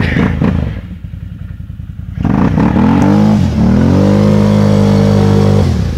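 BRP 800 ATV's Rotax V-twin revving hard while stuck nose-down in a mud hole: a short rev, a lower idle, then the engine climbs, dips and is held at high revs for a couple of seconds before dropping back near the end.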